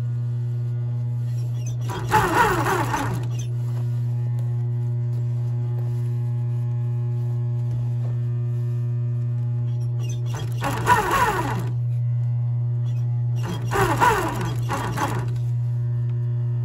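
Industrial sewing machine stitching leather in three short bursts, one about two seconds in and two more from about ten seconds in. Steady background music with a low drone plays throughout.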